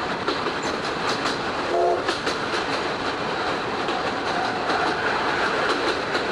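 Old-type passenger coach running behind a steam locomotive, heard through an open window: a steady rush of wheel and wind noise with irregular clicks of the wheels over rail joints. A brief pitched tone sounds about two seconds in.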